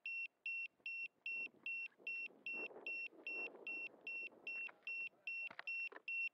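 Small electronic beeper aboard an electric RC jet model, sounding a steady, evenly repeated high beep about two and a half times a second.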